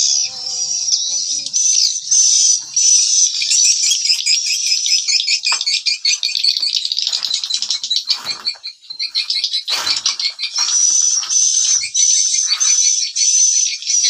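Swiftlets calling: dense, continuous high-pitched twittering and chirping with a short bright note repeated over and over, with a few brief soft knocks near the middle.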